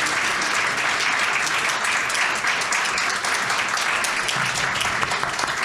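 An audience applauding: many people clapping together in a dense, steady patter.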